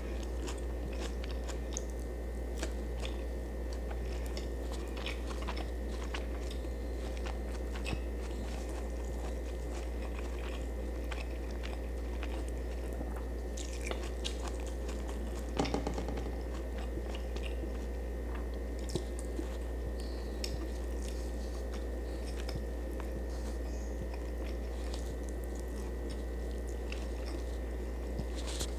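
A person chewing and biting close to the microphone, eating fried fish and rice by hand, with scattered small crunches and wet mouth clicks and a louder crunch about halfway through. A steady low electrical hum runs underneath.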